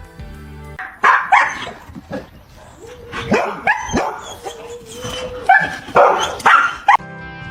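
A dog barking repeatedly in short, loud barks, about ten in all, stopping about seven seconds in.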